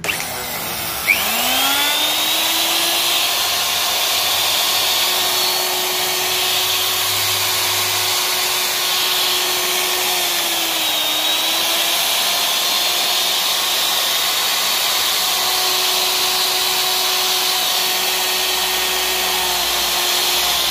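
Hitachi electric router's motor switched on, spinning up over about two seconds to a steady high whine, with a brief dip in pitch about ten seconds in. It is a test run after the armature's commutator was reconditioned and new carbon brushes fitted.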